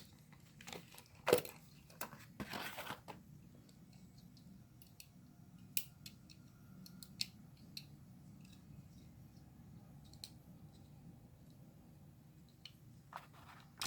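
Handling of toy packaging while twist-tie wires holding a diecast car are worked loose: a sharp click, a short rustle, then scattered faint ticks.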